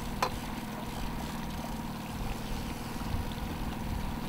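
A boat's motor running steadily, with one light click just after the start.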